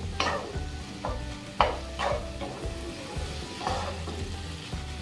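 Wooden spatula stirring and scraping onions and tomatoes in a nonstick frying pan, with a few sharp knocks against the pan, the loudest about a second and a half in, over the sizzle of the frying masala.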